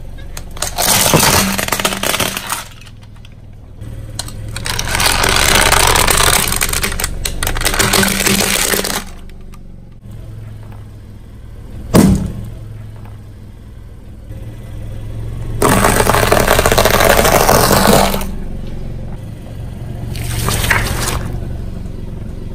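A car tyre rolling over objects on concrete and crushing them, with long stretches of crunching and cracking. About twelve seconds in there is a single sharp bang as a balloon bursts under the tyre. A low steady hum from the car runs underneath.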